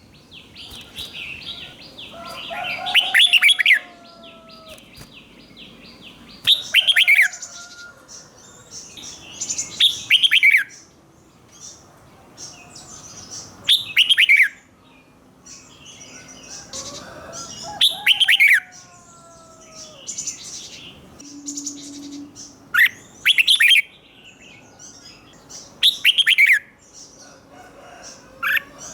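Red-whiskered bulbul singing loud, short, sweeping phrases, one about every three to four seconds, with softer chirps and calls in between.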